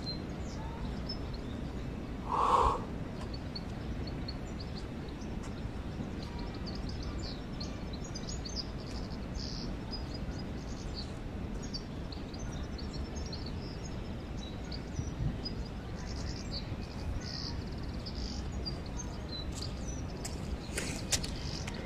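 A crow calls once, loudly, about two and a half seconds in, over a steady background with small birds chirping faintly and high throughout. A few sharp clicks come near the end.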